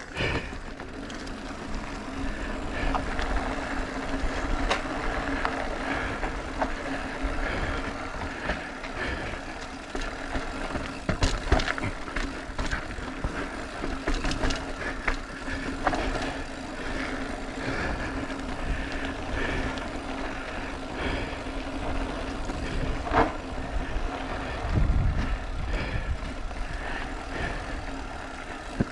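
Mountain bike descending a rocky granite trail: tyre rumble and the rattle of the bike over rock, with sharp knocks from bumps and a steady hum underneath. Wind buffets the camera microphone.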